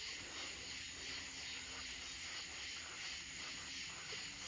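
Quiet outdoor night ambience: a steady high hiss with a faint low hum.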